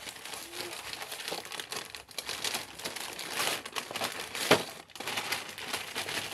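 Plastic packaging bag crinkling and rustling as it is handled and opened, in a run of irregular crackles, with one sharper, louder crackle about four and a half seconds in.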